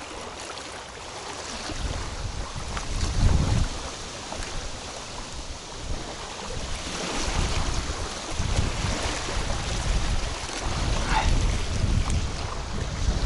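Strong wind buffeting the microphone in gusts, with waves splashing on the shore of the pond.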